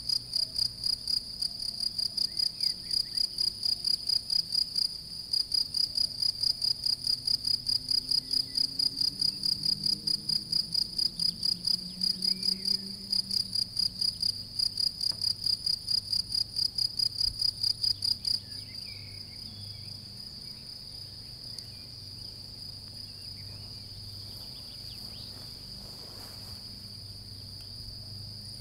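European field crickets (Gryllus campestris) singing. A nearby male gives a loud, high-pitched chirp about three times a second, then stops about 18 seconds in. A fainter, steady chorus of more distant field crickets goes on at the same pitch.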